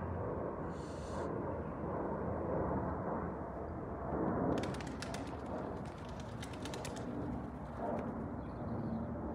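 Jet airliner passing high overhead: a steady distant rumble, with bird calls over it. A run of faint clicks comes about halfway through.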